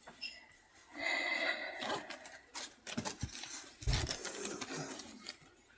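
Crinkling and rustling of plastic packaging and clothing being handled, with many small clicks and a dull thump near four seconds in.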